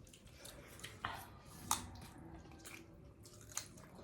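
Wet chewing and mouth smacking from people eating rice with meat and greens, with a few sharp smacks standing out about a second in and again a little later.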